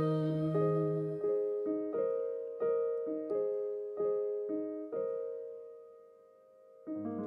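Piano playing a slow, unhurried line of single notes over held chords, each note struck and left to ring. A low held note drops out about a second in. The playing dies away about six seconds in, and a new, fuller chord is struck near the end.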